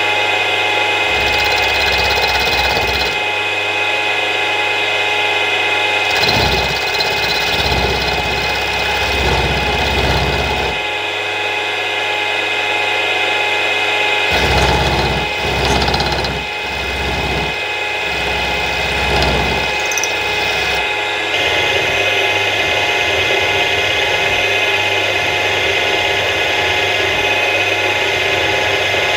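Milling machine motor and spindle running steadily with a constant whine while an end mill cuts a small flat on a metal shaft; a heavier low rumble comes and goes in several spells as the cutter bites.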